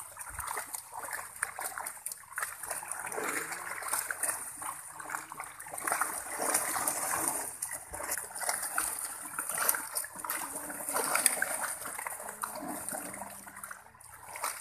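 Shallow pond water splashing and sloshing as people wade through it hauling in a fishing net, an uneven run of many small splashes.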